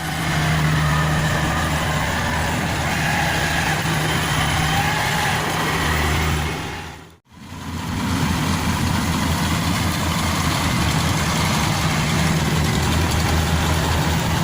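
Yanmar AW70V combine harvester's diesel engine running steadily with a low drone. The sound fades out briefly and back in about halfway through.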